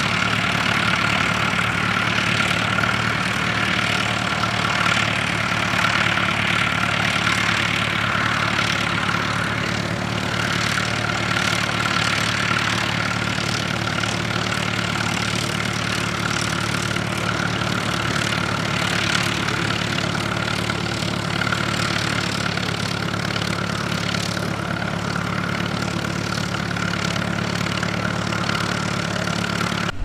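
Fordson Major tractor engine running steadily under load, pulling a plough.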